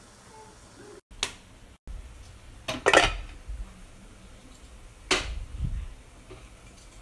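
A rice paddle scraping and knocking against a rice cooker's metal inner pot as cooked rice is scooped out, with a few sharp clinks, the loudest about three seconds in.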